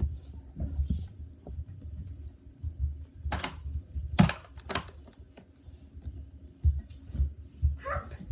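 Play-Doh and toys being handled on a tabletop: soft low thumps throughout, with three sharper knocks between about three and five seconds in.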